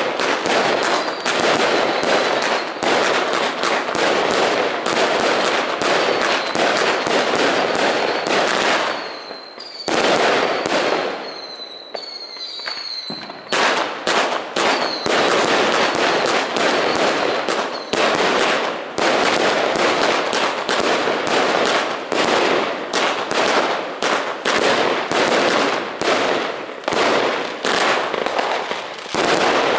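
Geisha 'Color Explosions' firework compound cake firing a rapid string of shots and crackling star bursts. About nine seconds in, the firing thins out for a few seconds and short whistling tones are heard, then the fast firing resumes.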